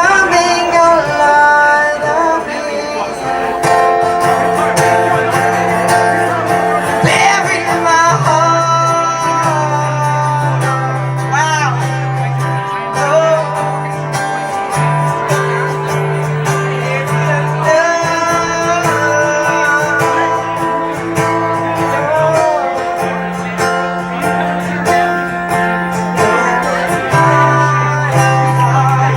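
Live song: guitar played over steady, held bass notes that change every few seconds, with a voice singing over them.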